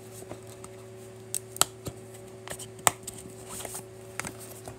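White cardboard packaging being handled by hand as an insert is pulled out of its box: light paper rubbing with a few sharp taps and clicks. A steady low hum runs underneath.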